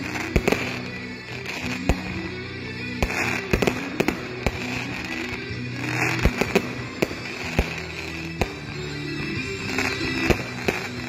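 Aerial fireworks going off in many quick, irregular bangs, with music playing underneath.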